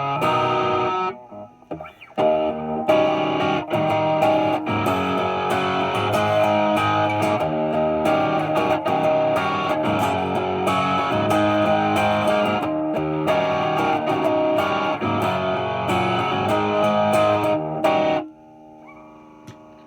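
Epiphone 1959 Les Paul Standard reissue electric guitar on the bridge pickup, played through an amp's clean channel driven by a Tube Screamer overdrive pedal, playing a song riff with a mildly overdriven tone. The playing breaks off briefly about a second in and stops near the end, leaving a faint ring.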